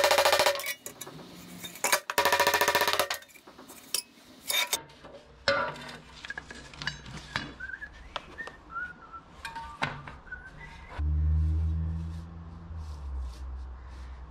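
Background music for the first few seconds. Then scattered light metallic clinks and taps as metal workshop pieces are handled, with a few short whistled notes. A low hum starts suddenly near the end and fades away.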